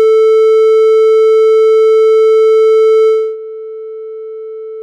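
A 440 Hz triangle-wave test tone, held steady at one pitch with its overtones. A little over three seconds in, its volume drops and its upper overtones are rolled off over about a third of a second. This leaves a quieter, duller tone at the same pitch: a simulation of headphones being taken off.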